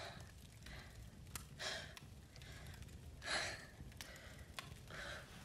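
A young woman breathing out in gasps and sighs, three breaths about a second and a half apart, the middle one the loudest, over a low steady rumble with a few faint clicks.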